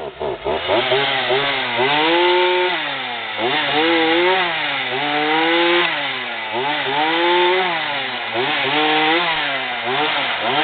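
Poulan 18-inch two-stroke chainsaw running loud, its engine pitch rising and falling over and over, about every one and a half to two seconds, as it is throttled up and eased off.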